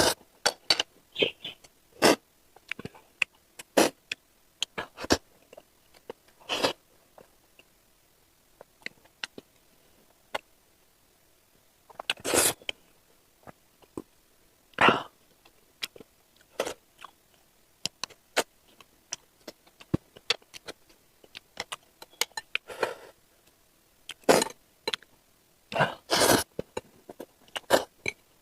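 Close-miked eating sounds from a mukbang: irregular wet mouth clicks from chewing, with a few louder, longer slurps of noodles.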